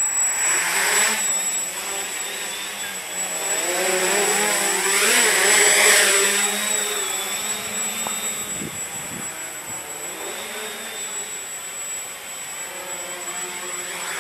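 Walkera Hoten-X quadcopter's brushless motors and propellers whining in flight, with a steady high-pitched tone over the buzz. The pitch shifts up and down as the throttle changes and as it passes close, loudest about five to six seconds in.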